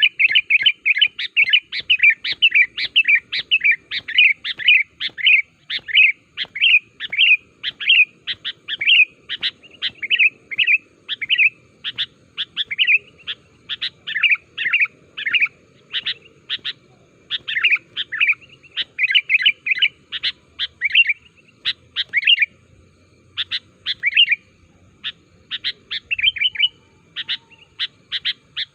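Sooty-headed bulbul (kutilang) calling without pause: a fast run of short, sharp chirps, about three a second at first, then looser with brief gaps.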